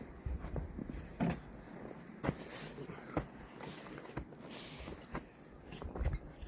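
Scattered light knocks and clicks of aluminum angle and tools being handled at a workbench, with a couple of short scratchy hisses about two and a half and four and a half seconds in.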